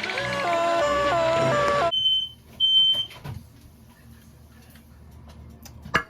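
Background music cuts off about two seconds in. Then come two short, high-pitched beeps from a smoke alarm set off by smoke from frying bacon. A brief knock follows near the end.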